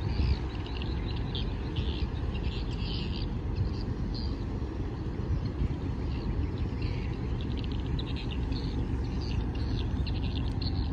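Low steady rumble of a large container ship passing close by, with birds chirping in short, scattered bursts over it.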